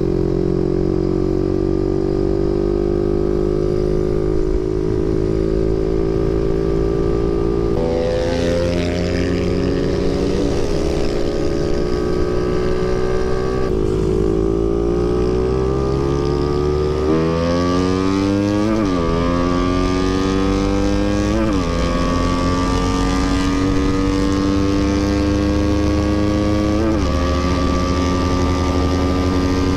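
Motorcycle engine running under way, heard from the rider's position. It holds a steady pitch at first, then eases off and accelerates again, with the pitch climbing and dropping sharply at each of several gear changes in the second half.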